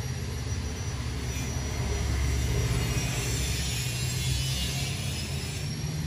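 Steady low mechanical rumble of construction work, with a faint, thin, high steady tone above it.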